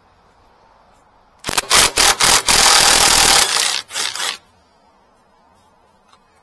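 A power tool on a bolt, run in a few short bursts, then held for about a second, then two more short bursts, loud and hissing.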